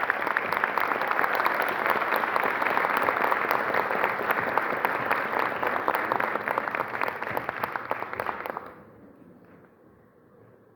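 Theatre audience applauding, a dense mass of hand claps that ends abruptly about three-quarters of the way through.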